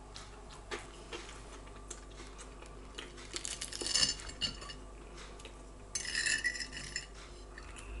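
Cutlery clinking and scraping on a plate while a fish burger is cut and eaten: a light click near the start, a cluster of sharp ringing clinks about three to four seconds in, and a short ringing scrape about six seconds in.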